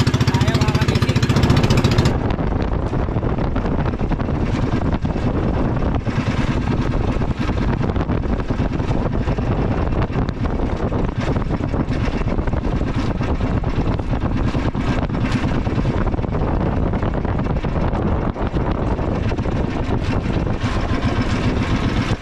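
Small outrigger boat's engine running steadily under way, with wind on the microphone and water rushing past the hull. About two seconds in, the steady engine note gives way to a rougher, noisier mix of engine and wind.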